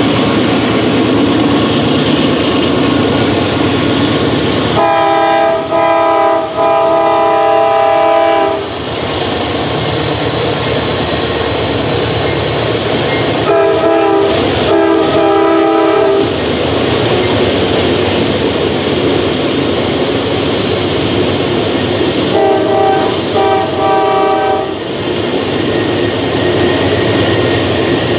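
Norfolk Southern intermodal freight train passing close by: the diesel locomotives' engines running and the cars' steel wheels clattering on the rails as double-stack container cars roll past. A locomotive horn sounds three times, about 5, 14 and 23 seconds in, each a few seconds of chord blasts broken by short gaps.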